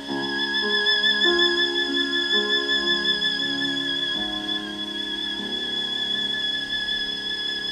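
Violin music with lower accompaniment, played through a 6BM8 (6F3P) single-ended tube amplifier and bare Isophon oval loudspeakers. A single high violin note is held with vibrato while the lower notes change about once a second.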